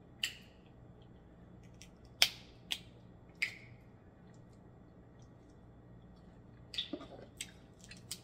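Snow crab leg shells being snapped and cracked by hand: a few sharp cracks spread over the first half, then a cluster of smaller clicks near the end.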